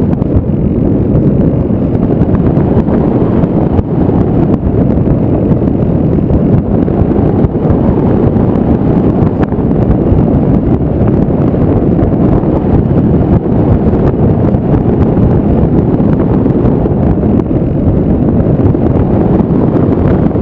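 Steady, loud wind rush buffeting the microphone of the onboard camera on an FPV model plane in flight.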